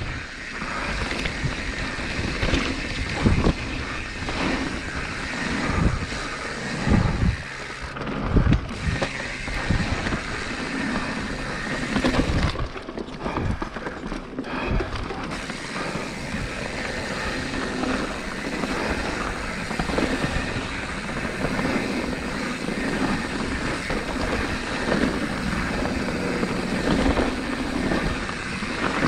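Mountain bike riding down a rocky dirt singletrack: tyres rumbling over dirt and stones and the bike rattling, with wind rushing on the microphone. Heavier thumps come over bumps several times in the first few seconds.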